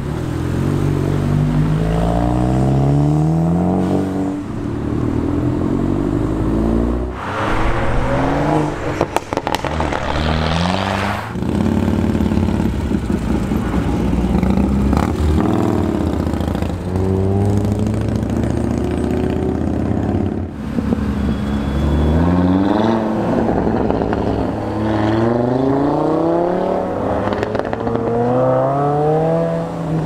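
Performance car engines revving hard as they accelerate through the gears. The pitch climbs, drops at each shift and climbs again, over and over, with a louder, rougher stretch in the middle.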